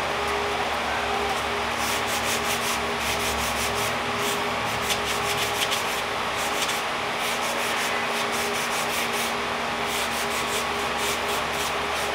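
Sandpaper rubbing along a balsa wood dowel, drawn back and forth by hand: a steady scratching in repeated strokes, smoothing the rough surface left by cutting the dowel.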